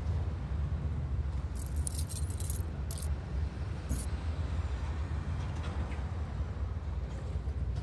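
A low, steady rumbling drone, with metallic jingling for about a second starting 1.5 seconds in and two shorter jingles around 3 and 4 seconds in.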